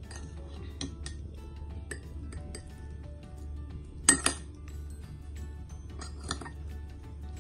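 A metal spoon clinking and scraping against a glass plate and a ceramic bowl while eating, a few sharp clinks, the loudest a quick pair about four seconds in. Soft background music runs underneath.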